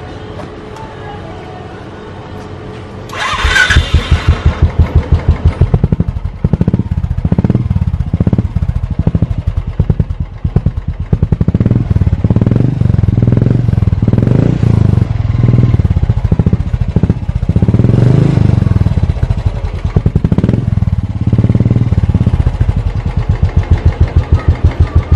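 Royal Enfield Bullet single-cylinder engine breathing through an aftermarket Swagman silencer packed with a perforated tube and ceramic wool; it starts about three seconds in, then idles with a steady, even thump.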